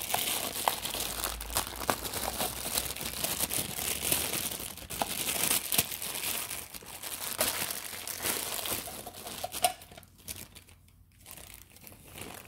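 Packaging crinkling and rustling as it is handled during the unboxing, with many small clicks and knocks. It dies down near the end.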